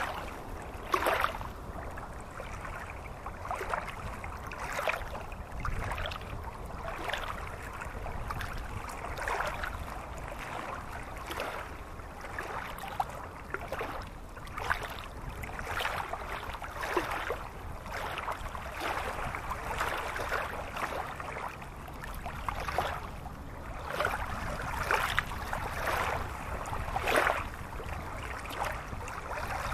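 Shallow stream running over rocks, with irregular splashes and gurgles over a steady low rumble.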